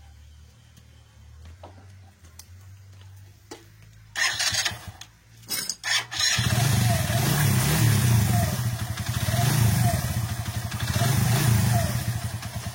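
A Euro Motor KSR150 motorcycle engine being started on its electric starter, fitted with a new starter clutch (Bendix drive): two short bursts about four and five and a half seconds in, then the engine catches and runs steadily until it stops at the end.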